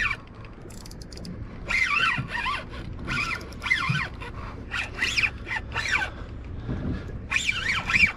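Spinning reel zinging in about six short bursts, each rising and falling in pitch, as a hooked fish is fought on a bent rod.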